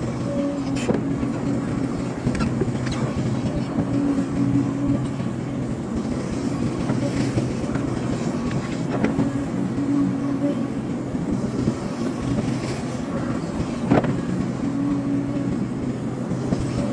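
Hydraulic excavator's diesel engine running steadily under load, swelling about every four to five seconds as it works, with a few sharp knocks, the loudest about fourteen seconds in.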